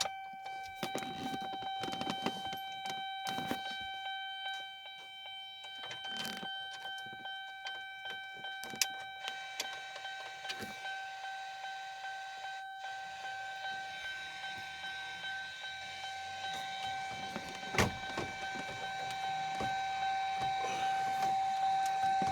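Chevy Silverado's warning chime dinging over and over in a fast, even rhythm, louder toward the end. Scattered clicks and knocks from work in the cab, with a sharp click about 18 seconds in.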